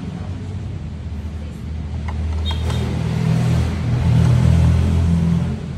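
A motor running with a steady low hum that grows louder about halfway through and drops back near the end, over a few light metallic clicks of the hex key working the disc bolts.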